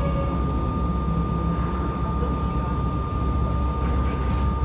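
Mitsubishi GTO-VVVF inverter traction motors of a Yokohama Blue Line 3000A subway car, heard running: a steady inverter whine over the rumble of the wheels on the track.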